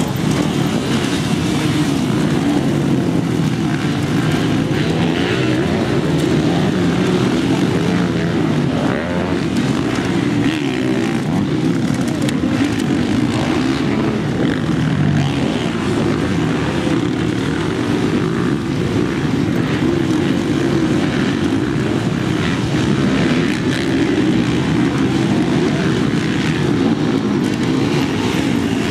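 Several motocross dirt bikes racing, their engines revving up and down without a break as the riders work through the turns and climbs.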